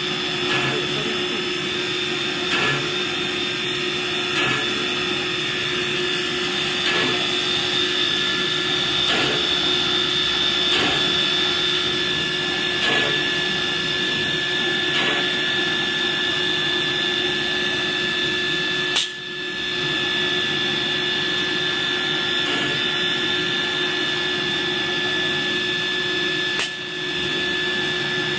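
CNC nesting router's gang-drilling head boring holes in a particleboard panel: a steady high-pitched whine from the spindle and drill motors, with a faint knock about every two seconds as a bit plunges. Twice, a little past halfway and near the end, a sharp click comes with a brief dip in the sound.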